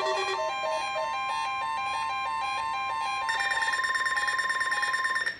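Several NOAA weather radios sounding their alert beeps at different pitches for a Required Weekly Test, over a steady tone near 1 kHz. A louder, higher-pitched beeping joins about three seconds in, and everything cuts off near the end as the broadcast voice is about to start.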